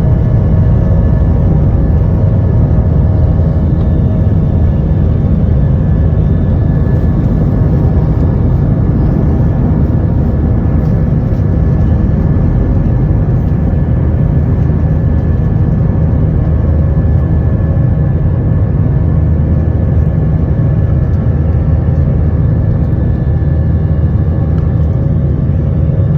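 Boeing 737-800's CFM56 turbofan engines running at high thrust, heard inside the cabin as a loud, steady low rumble with a few steady fan tones above it.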